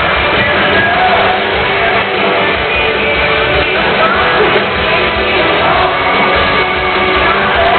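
Pop-rock band playing live with electric guitars, drums and lead singing, amplified through an arena PA and filmed from the crowd.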